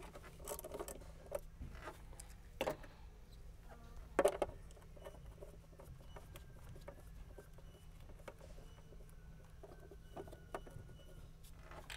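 Faint, scattered clicks and taps of a small hand tool on the 10 mm nut that holds the plastic engine trim cover, as it is undone. The loudest click comes about four seconds in.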